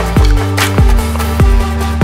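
Electronic music with a deep bass line and a heavy kick drum that drops in pitch on each hit, about one beat every 0.6 seconds.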